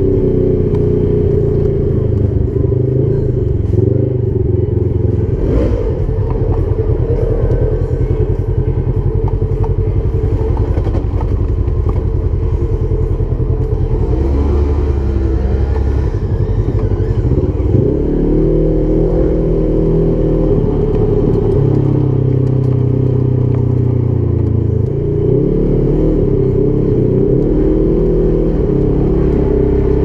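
Side-by-side UTV engine running hard and revving, its pitch rising and falling with the throttle and shifting several times.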